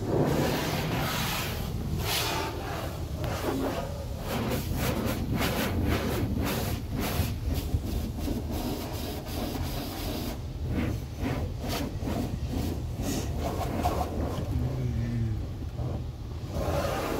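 Self-serve car wash high-pressure spray wand blasting water onto the car's windows and body, heard from inside the car: a hiss with rapid, uneven spattering of water on the glass over a low steady rumble. The spattering is densest through the middle and eases off near the end.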